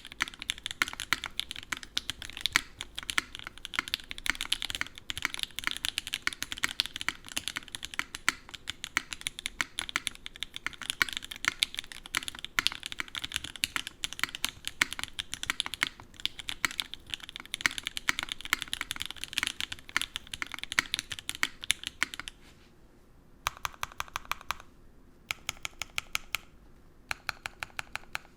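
Typing on an Onyx mechanical keyboard with lubed and filmed Gateron Oil King linear switches in a full aluminium plate, under GMK keycaps: a steady stream of key strokes. About 22 seconds in the typing stops, followed by three short runs of very fast, evenly spaced key presses.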